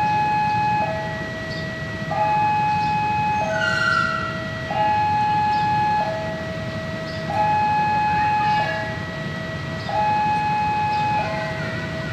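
Railway level-crossing warning alarm sounding a slow two-tone alternation, a higher and a lower tone each held for about a second and a quarter, over the low rumble of freight wagons rolling slowly toward the crossing.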